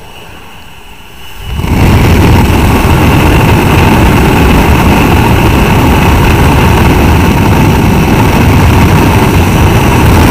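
Steady drone of a small jump plane's engine heard from the cabin at the open door. About a second and a half in, it jumps to a loud, steady rush of slipstream wind and engine noise as the microphone goes out the open door into the airflow.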